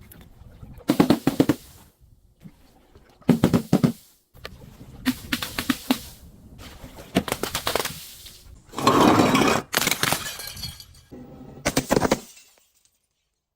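Glass being crushed and broken, cracking and shattering in about seven crunching bursts of roughly a second each, with short pauses between them. The sound stops dead near the end.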